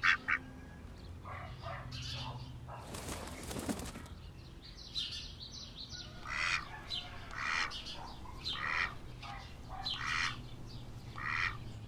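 A duck flapping its wings in a short rush about three seconds in, then calling over and over, roughly once a second.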